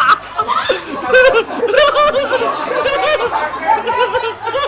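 A group of people laughing, with repeated short pitched laughs and some talk mixed in.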